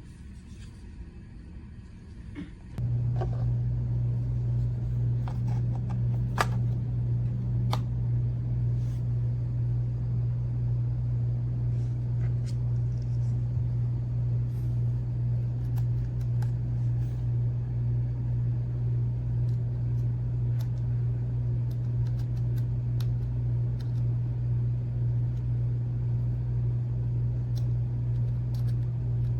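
A steady low hum that starts abruptly about three seconds in and holds evenly, with a few light clicks over it in the first seconds after it starts.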